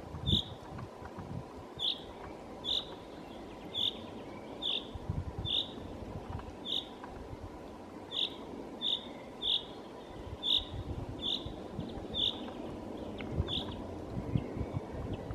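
Common chaffinch giving a short call over and over, about once a second, falling silent near the end.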